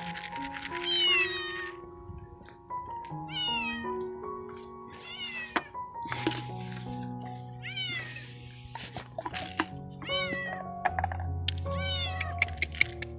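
Stray tabby cat meowing repeatedly, short rising-and-falling meows a second or two apart, calling for food. Background music with held notes plays underneath.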